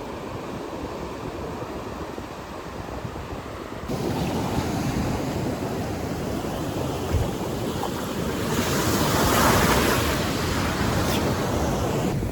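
Ocean surf washing in, with wind on the microphone. The sound steps up in level about four seconds in, and a wave swells to its loudest a little past the middle before easing off.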